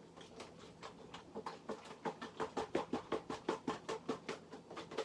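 A covered container of raw chicken wings in milk being shaken by hand, the wings knocking inside it in a quick steady rhythm of about four to five knocks a second that grows stronger after about a second and a half.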